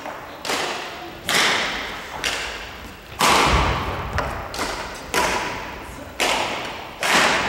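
Badminton rackets striking a shuttlecock in a singles rally: sharp smacks about once a second, each echoing through the gym hall. The loudest, about three seconds in, has a deep thud beneath it.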